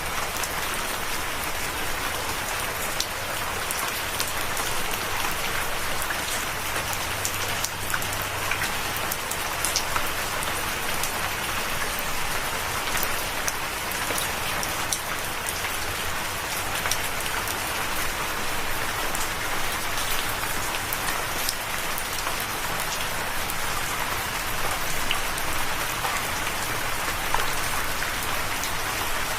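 Steady rain falling, an even hiss with scattered sharp drops hitting a surface.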